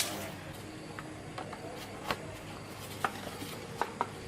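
Irregular light clicks and taps of tools and small metal parts being handled, the sharpest right at the start, over a faint steady hum.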